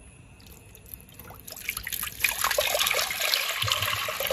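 Water poured in a stream into an empty black cooking pot. It starts as a faint trickle and grows into a steady splashing pour about a second and a half in.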